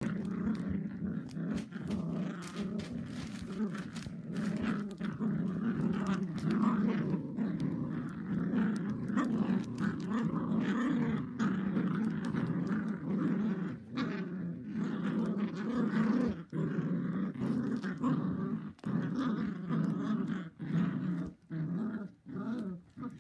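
Cocker spaniel puppies, nearly eight weeks old, growling almost without a break as they play tug of war with a soft toy. The growls break into shorter bouts near the end.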